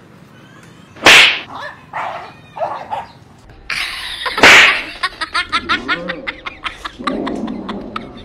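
Sharp swishing whooshes of a blanket being swung and thrown over a dog, one about a second in and a louder one around four and a half seconds, followed by a rapid run of short yelps and scrabbling as the startled dog bolts away under the blanket.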